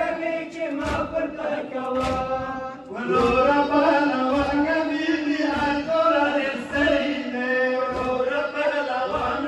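Men chanting a Shia mourning lament (noha) together, a long drawn-out sung line, with dull chest-beating strokes (matam) keeping time about once a second.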